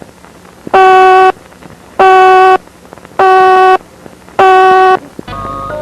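Emergency alert alarm sounding four loud, buzzy horn-like beeps, evenly spaced about a second apart. A marimba-like melody begins just before the end.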